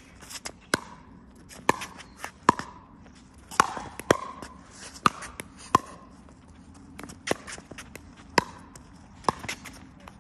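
Pickleball doubles rally: about a dozen sharp, hollow pops of paddles hitting the plastic ball, each with a short ring, coming at irregular intervals, with lighter ticks of the ball bouncing on the hard court.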